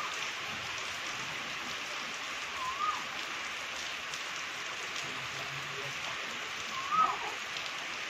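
Steady rain falling, an even hiss. Three brief rising calls sound over it, at the start, about three seconds in and near the end, the last the loudest.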